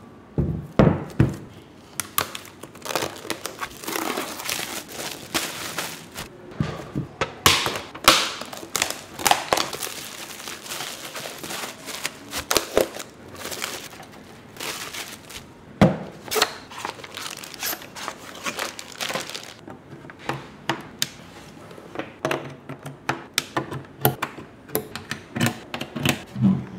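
Plastic packaging bags crinkling and rustling as equipment is unwrapped, in irregular bursts with some tearing. Occasional dull thuds as the gear is handled and set down.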